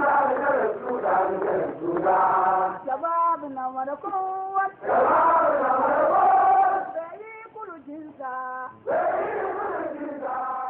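Group of voices singing a chant, with passages of a single voice singing alone between the group passages, like a leader and chorus taking turns.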